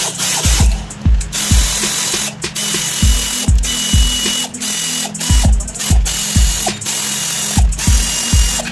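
Power ratchet wrench running in short spurts with brief pauses between them, undoing bolts on an engine's cylinder head. Background music with a steady bass beat plays underneath.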